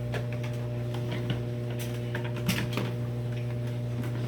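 Steady low electrical hum, with a few light clicks and knocks of hard plastic being handled about halfway through.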